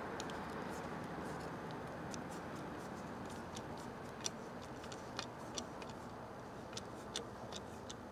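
Faint, irregular small metallic clicks and ticks of a screwdriver snugging down the steel action screws of an old Marlin .22 rifle, over a steady low background hum.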